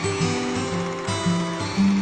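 Background music: a plucked guitar melody with notes changing every few tenths of a second.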